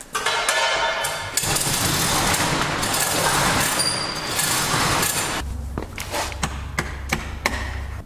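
Steel roll-up door raised by its hand chain: the chain clinks, then the metal slats rattle loudly as they coil up for about four seconds. After that comes a steady low hum with scattered clanks.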